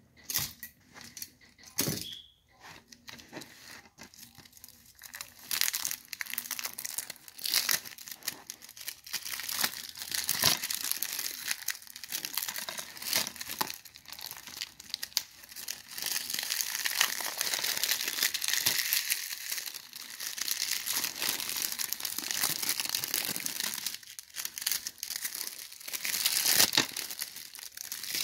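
Plastic shrink wrap being torn and peeled off a DVD case, a long run of crinkling with small snaps, most continuous in the second half.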